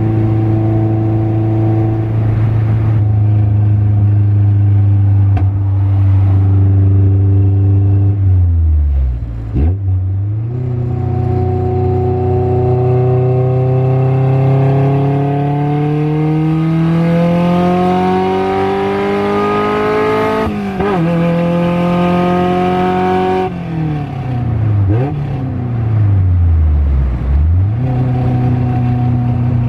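Car engine being driven through the gears with a manual gearbox: the pitch holds steady, drops sharply about nine seconds in, then climbs steadily for about ten seconds under acceleration before falling suddenly at a shift. It steps down again a few seconds later and dips twice more near the end.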